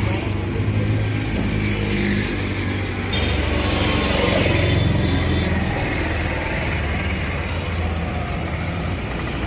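A motor vehicle engine running with a steady low hum, with a faint high tone for a couple of seconds partway through.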